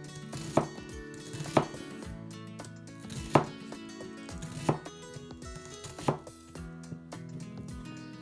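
Knife chopping on a cutting board, five separate unevenly spaced chops, over background music.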